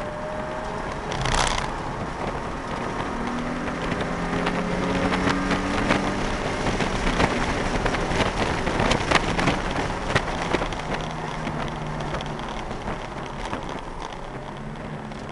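Nissan 350Z's 3.5-litre V6 engine and road noise heard from inside the cabin. The engine note rises under acceleration, and a dense crackle of rattles runs over it. It grows louder through the middle and eases toward the end.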